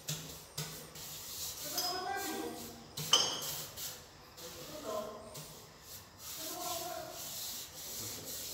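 Cement mortar being worked and scraped with a trowel on a concrete floor, with one sharp metallic clink about three seconds in.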